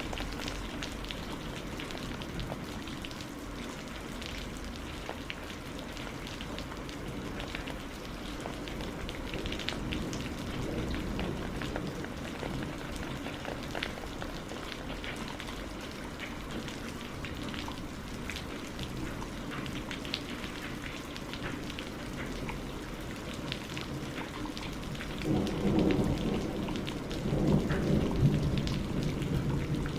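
Steady rain with many separate drop hits. Near the end a low rumble of thunder swells for a few seconds, the loudest sound here.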